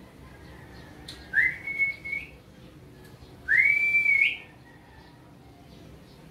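A person whistling twice. Each whistle slides up and then holds one pitch for about a second, and the second is a little longer than the first.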